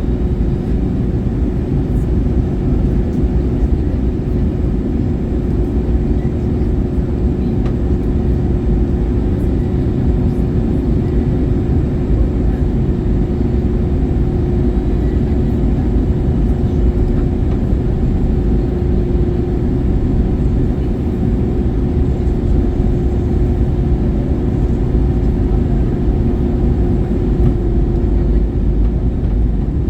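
Steady cabin noise inside an Airbus A321-111 in flight: a deep rumble of its CFM56 engines and the airflow, with a steady hum running through it.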